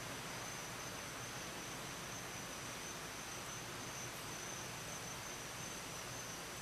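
Quiet room ambience: a steady hiss with a thin, continuous high-pitched tone.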